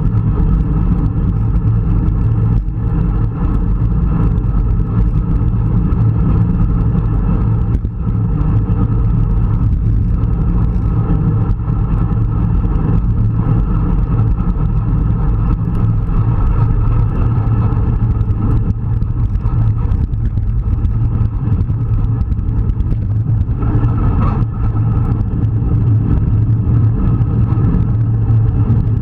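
Steady wind rumble on the microphone of a bike-mounted action camera moving at racing speed among a group of road cyclists, with road and tyre noise underneath.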